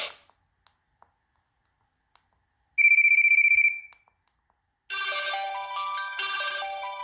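LG AX565 cell phone's speaker playing its preloaded ringtones. A warbling electronic ring about a second long comes near the middle, and from about two seconds before the end a synthesized ringtone melody of quick stepping notes, repeating its phrase.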